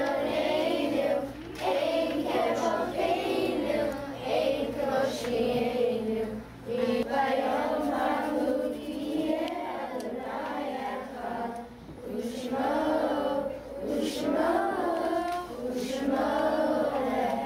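A group of children singing a Hebrew prayer together in unison, in phrases with short pauses between them.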